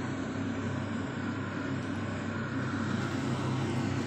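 Induction hob running under a stainless-steel pot of soup on a medium setting: a steady low hum with a rushing noise over it.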